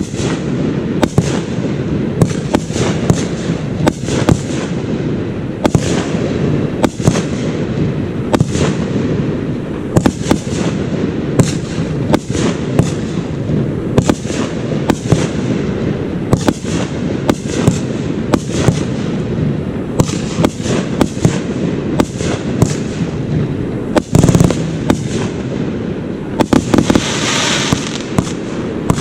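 Fireworks going off in quick succession: sharp bangs, often several a second, over a steady low rumble, with a burst of dense crackling about two seconds before the end.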